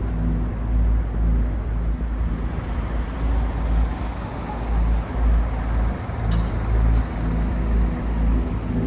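Chiba Urban Monorail suspended train running past: a steady rushing vehicle noise that grows louder and brighter about two seconds in, with a couple of short sharp ticks near the end.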